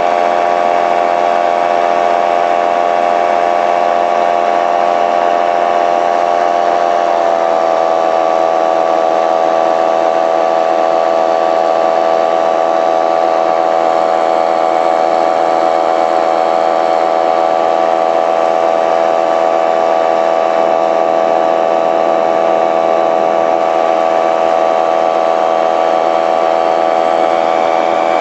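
Paramotor engine running steadily in flight, a constant drone. Its pitch drops slightly about seven seconds in and then holds.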